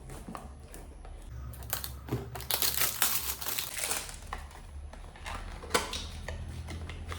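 Product packaging being handled and opened by hand: irregular crinkling and rustling with small clicks, loudest and busiest in the middle.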